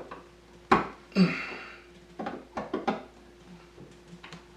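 Sharp metal clinks and knocks of a big flathead screwdriver fitted into a Dremel-cut slot in a stripped screw. The slot is not yet deep enough for the blade to grip. The loudest knocks come about a second in, with a few lighter ones near the middle.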